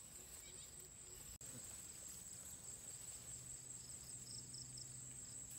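Faint, steady high-pitched drone of insects, with a brief dropout about a second and a half in.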